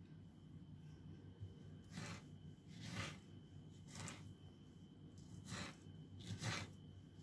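Kitchen knife scoring a peeled mango half on a wooden cutting board: about six faint, short strokes as the blade cuts through the soft flesh to the board.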